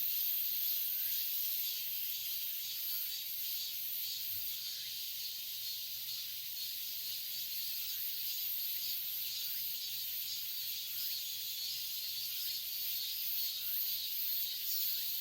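Cicadas singing in a steady, high-pitched drone.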